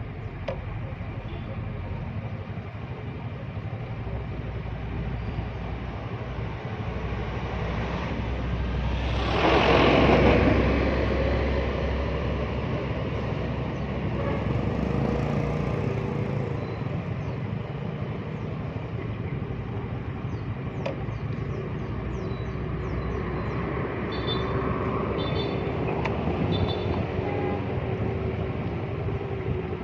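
Motorcycle on the move: steady engine, wind and road noise, with a louder rush about a third of the way in.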